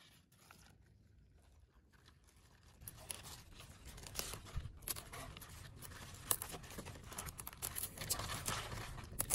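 Fresh cabbage seedling leaves rustling in the hands, with crisp little snaps and tears as leaves and stalks are pulled off. It starts about three seconds in.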